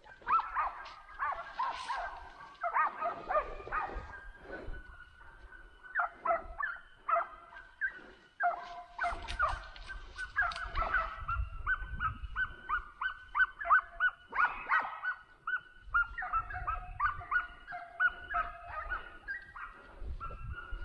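A pack of hunting dogs baying and yelping, many short high calls overlapping several times a second.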